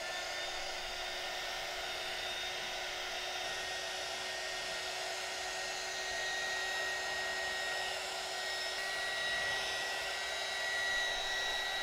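Handheld heat gun (hot-air blower) running steadily: a rush of air with a low hum and a higher whine, a little louder in the second half. It is warming a vinyl phone skin so the film settles onto the curved corners.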